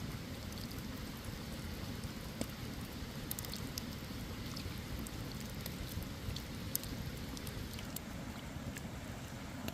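Wood campfire crackling, with scattered sharp pops over a steady low hiss.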